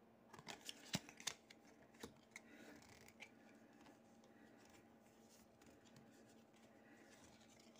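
Faint handling of football trading cards: soft clicks and rustles as cards are slid off a stack and laid on a wooden table, a handful of them in the first three seconds or so.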